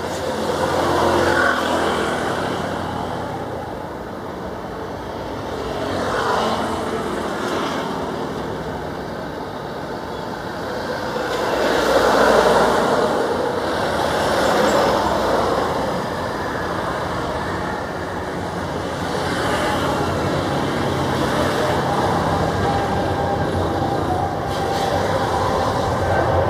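Boeing 777-300ER's twin GE90-115B turbofans at takeoff power: a steady jet roar that swells and eases several times.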